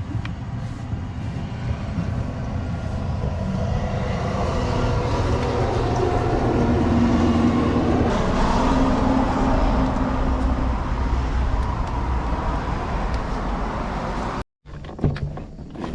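A motor vehicle going past with a low rumble that swells to a peak about halfway through and then fades, cut off suddenly near the end.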